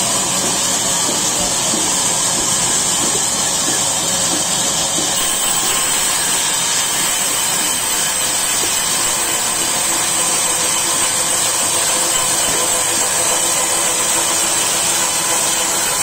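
Large belt-driven band sawmill running steadily, its blade cutting lengthwise through a log, with a high hiss over the machine's drone.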